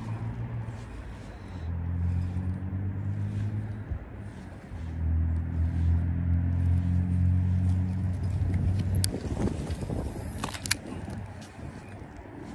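A deep, steady motor hum, like a vehicle engine, comes in about two seconds in, dips briefly, then comes back louder for about four seconds before fading. Near the end there are a few sharp clicks and scrapes of handling noise.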